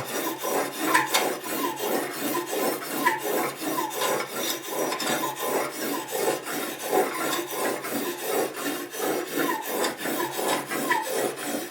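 A bar faced with 600-grit abrasive paper is stroked back and forth along the cutting edge of a Victorinox vegetable peeler blade held in a guided sharpener, sharpening the edge. It makes a steady, rhythmic rasping rub at about two strokes a second.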